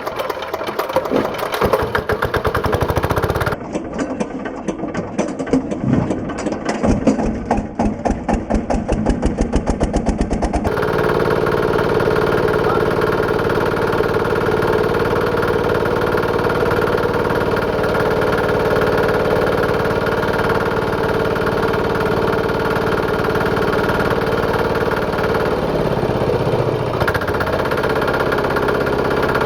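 Small diesel engine with a big flywheel being started by hand with the compression release held open, its separate strokes coming faster and faster over about the first ten seconds, then running steadily.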